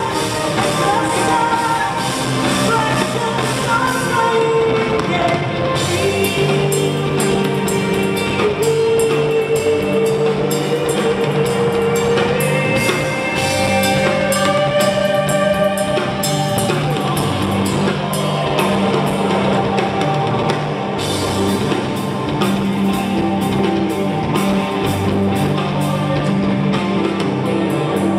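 Rock band playing live: a gliding melodic lead line over steady bass notes, with a drum kit coming in about six seconds in.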